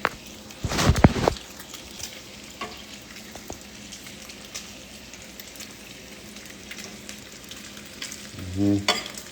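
Bacon and eggs frying in a pan, a steady sizzle, with a loud clatter about a second in and a short vocal sound near the end.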